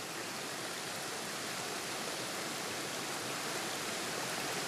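Steady rushing of a shallow mountain river running over rocks in a riffle.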